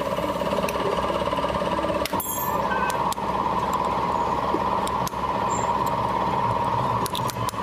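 A steady mechanical hum with a few sharp clicks.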